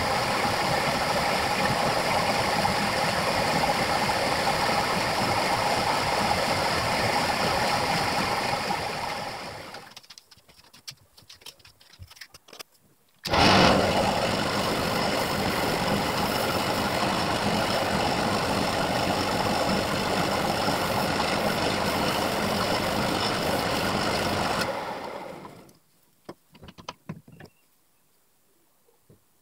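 An electric workshop power tool motor runs steadily with a constant hum and hiss. It winds down and stops about ten seconds in, and a few light clicks follow. About three seconds later it starts again with a sudden loud jolt, runs steadily, and winds down again near the end.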